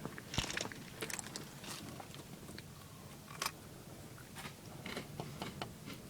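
Someone chewing crunchy snacks (Cheetos and crackers) inside a car: irregular, crisp crunches.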